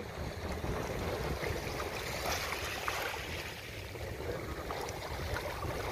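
Small waves lapping and water sloshing in the shallows at the shoreline, with a steady low rumble of wind on the microphone.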